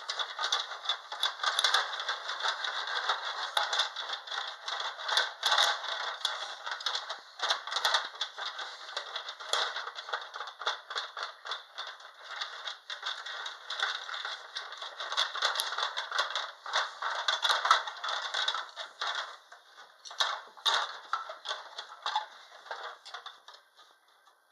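Sylvanian Families toy house being shaken in a mock earthquake, its small plastic furniture and pieces rattling and clattering without a break, then dying away near the end.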